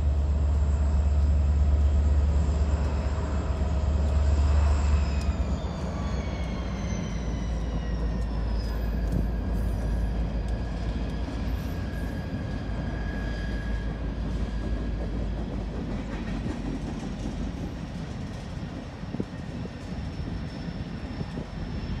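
Two EMD diesel locomotives, a GP49 and an SD45-2, passing under power, with a deep engine rumble that is strongest for the first few seconds and a high whine that falls in pitch as they go by. After them the steady rumble and rattle of loaded covered hopper cars rolling past.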